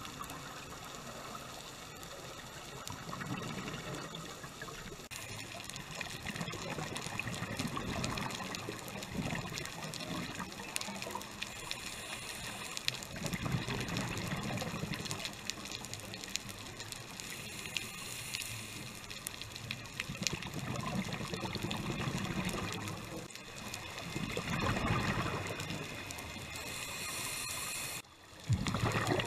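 Scuba regulator breathing heard underwater: bursts of exhaled bubbles burble and gurgle every four to six seconds over a steady hiss. The sound briefly drops out near the end.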